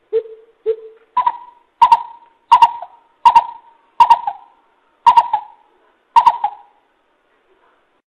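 Coucal giving its hollow hooting call: two low hoots, then a series of about seven higher hoots a little under a second apart, the gaps widening toward the end, stopping about six and a half seconds in.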